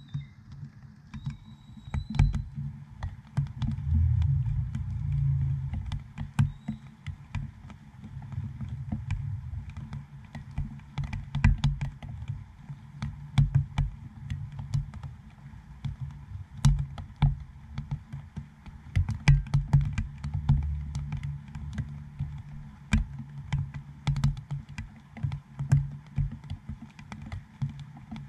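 Raindrops striking a GoPro dome housing right at the microphone: an irregular patter of sharp taps and low knocks, some drops landing much harder than others, over a faint steady hiss of light rain.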